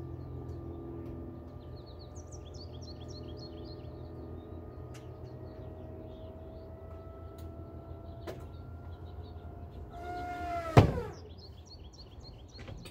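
The 1964 Corvair convertible's factory power-top motor running steadily as the top rises, its hum slowly creeping up in pitch. About eleven seconds in, a loud thump as the top comes down onto the windshield frame, and the motor quickly winds down. Birds chirp in the background.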